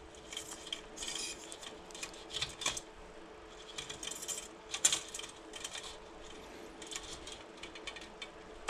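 Bicycle wheel spokes lightly clinking and rattling against one another and the hub as they are fed through the hub flange holes during lacing: a scatter of small, irregular metallic ticks.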